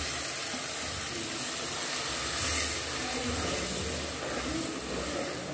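Blended tomatoes sizzling and hissing steadily in hot oil in a cooking pot as they are stirred with a wooden spoon.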